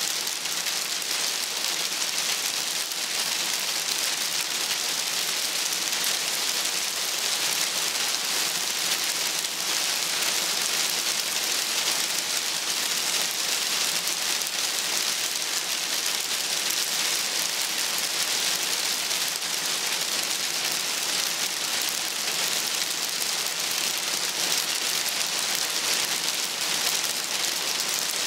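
Light hail falling steadily: a dense, even patter of small pellets striking plants, rocks and the surface of a garden pond.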